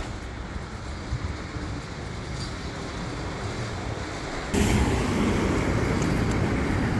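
Steady street traffic noise, a rumble with hiss and no distinct single vehicle. It grows slowly louder and jumps up abruptly about four and a half seconds in.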